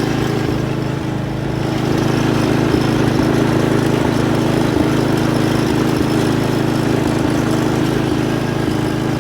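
Riding lawn mower's small engine running steadily under way, getting slightly louder about two seconds in.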